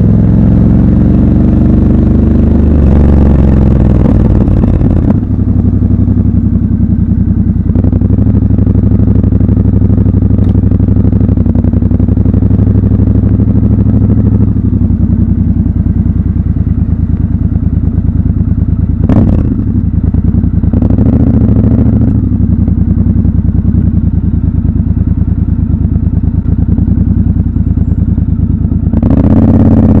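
Triumph Scrambler 1200 XC's 1200 cc parallel-twin engine running at low revs at slow riding speed, the revs swinging up and down over the first few seconds and picking up again near the end. A single sharp knock comes about two-thirds of the way through.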